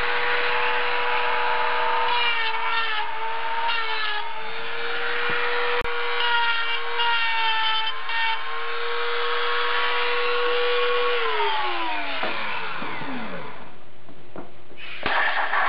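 Handheld high-speed rotary tool with a small grinding stone, grinding cast iron to smooth a casting flaw at the intake port of a Mazda 13B six-port end iron: a steady high whine with a rasping grind. About 11 seconds in it is switched off and its whine falls in pitch as the motor spins down.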